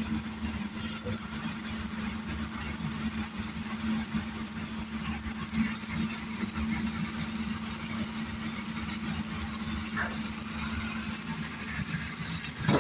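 Engine-driven welding generator running steadily, with a fine crackling hiss from a stick-welding arc burning a 7018 electrode on pipe. A sharp knock near the end.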